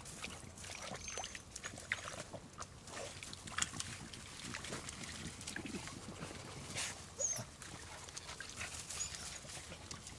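Beagles snuffling and pushing through dry brush and leaf litter, with scattered twig crackles, as they search out a rabbit's scent.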